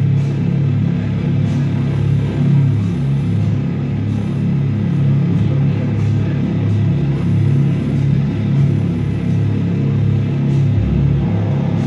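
Loud post-industrial electronic noise music performed live on tabletop electronics: a dense, heavy low drone that pulses unevenly. A higher, brighter layer joins it near the end.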